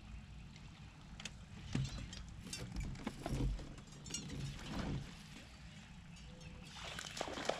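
Scattered clicks and short rustling swells from fishing tackle worked on a boat deck as the rod loads up with line in the water, over a low steady rumble.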